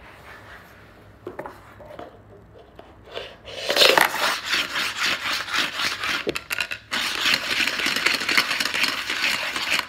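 Dice rattling inside a plastic cup as it is slid and swirled across a wooden floor to stack them, a dense clatter of rapid clicks in two bouts of about three seconds each, starting a few seconds in.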